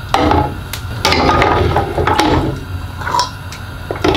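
Small glass jars with metal twist-off lids clinking and knocking against each other and the stainless steel stockpot as they are set down one after another, a string of irregular sharp clicks.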